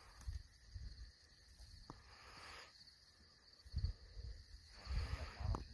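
Night insects chirping steadily, a faint high, fluttering drone, under several low thumps and rustles. A sharp click comes about two seconds in and another near the end.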